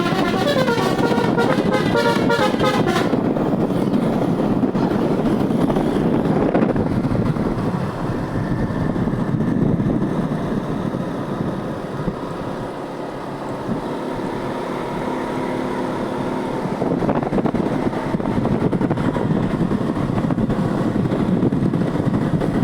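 A bus's multi-tone musical air horn (telolet) plays a short stepping melody, which stops about three seconds in. For the rest, steady vehicle engine and road noise.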